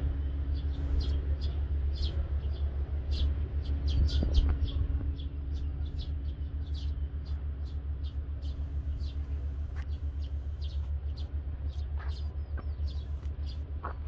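Small birds chirping in many short, high calls, over a steady low rumble.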